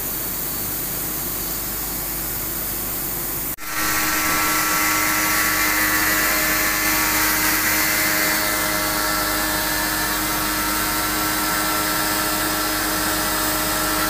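Electric pressure-washer pump running with a steady hum while its spray gun jets water onto an air conditioner's indoor coil, after a brief break in the sound about three and a half seconds in.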